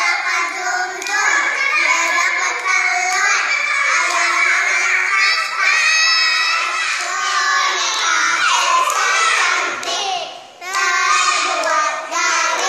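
Several children singing a chanted rhyme together, high-pitched and overlapping, the song of a traditional hand-clapping game; the singing dips briefly about ten seconds in.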